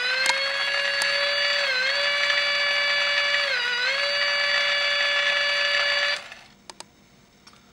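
Snap Circuits optical theremin sounding through the kit's small speaker: a steady buzzy electronic tone whose pitch dips briefly twice as a hand moves over the light sensor. The tone cuts off about six seconds in, and a couple of clicks follow.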